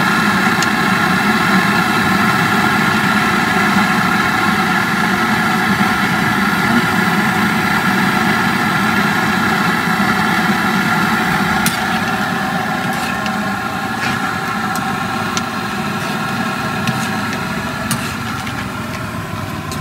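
A small engine idling steadily close by, with a few light clicks in the second half.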